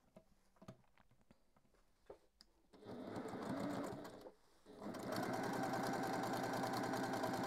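Electric sewing machine stitching a seam through patchwork fabric. It is quiet at first apart from a few faint clicks, then runs for about a second and a half from about three seconds in, pauses briefly, and runs steadily again from about five seconds in.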